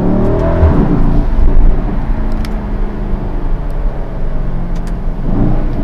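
Mercedes-AMG GLE 63 S's 4.0-litre twin-turbo V8 running with a low rumble, its pitch rising briefly at the start and swelling again near the end.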